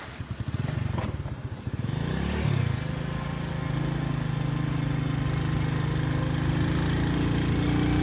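Small Honda motorcycle engine under way. It starts with low, separate firing pulses, briefly revs up and down about two and a half seconds in, then settles into a steady hum that climbs slowly in pitch as the bike picks up speed. Wind and road noise run underneath.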